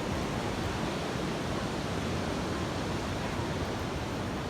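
Steady rush of sea waves on the shore, with no separate events.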